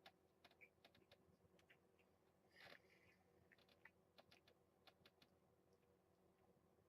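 Near silence, with faint irregular small clicks and ticks scattered throughout and a slightly louder patch of them about two and a half seconds in.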